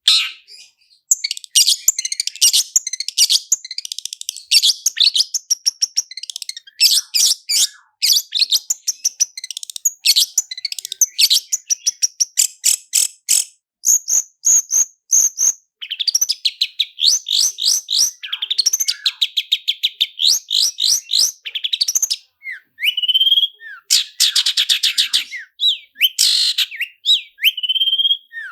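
Long-tailed shrike singing a fast, continuous rolling song of rapid trills and sharp repeated notes, with short whistled phrases mixed in.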